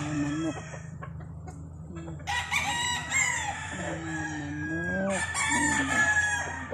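Rooster crowing: one long crow begins about two seconds in, and another call follows near the end.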